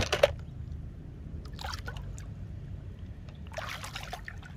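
A rubber toy iguana dropped into a plastic tub with a couple of sharp knocks, followed by faint water splashing and trickling twice, over a steady low rumble.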